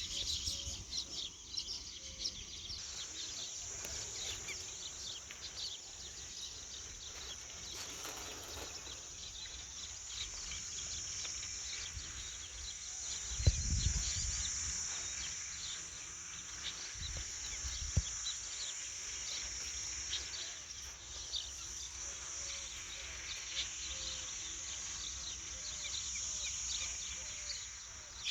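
Pondside ambience: a steady, high-pitched insect drone with many short bird chirps over it, and low rumbling of wind on the microphone with a sharp thump about halfway through.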